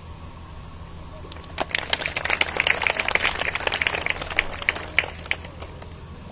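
Applause, many hands clapping, starting about one and a half seconds in and thinning out near the end, over a steady low hum.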